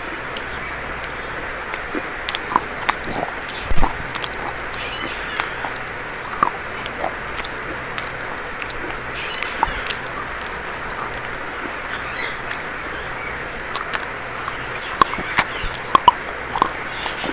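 Dry chalk being bitten and crunched close to the microphone: irregular sharp crackles and snaps, thickest a few seconds in and again near the end, over a steady hiss.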